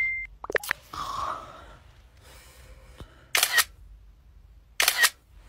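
Two phone camera shutter clicks, one about three and a half seconds in and another about a second and a half later, as a selfie is taken. Just before them, a short electronic tone cuts off right after the start.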